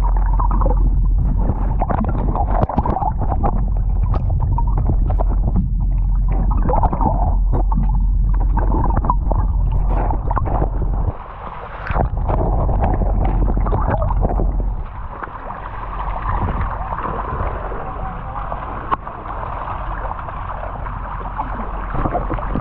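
Muffled underwater sound: a low rumble with water sloshing and gurgling, dropping out briefly about eleven seconds in, then giving way to a quieter, steadier hiss about fifteen seconds in.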